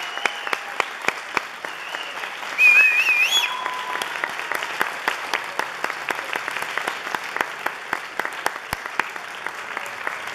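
Audience applauding, a dense patter of many hands clapping. A few cheers and a loud, wavering high whistle rise above the clapping about two and a half seconds in.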